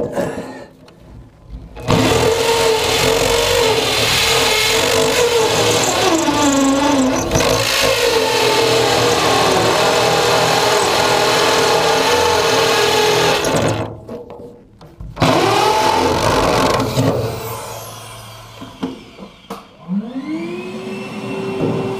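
Hammer drill boring into a concrete floor with a masonry bit. It runs steadily for about twelve seconds, its pitch dipping under load partway through, then stops and drills again briefly. Near the end a fainter whine rises and holds.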